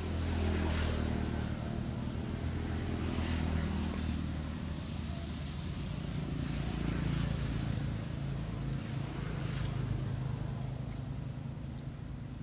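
A motor engine running steadily, its pitch drifting slowly up and down, with a hiss that swells every few seconds.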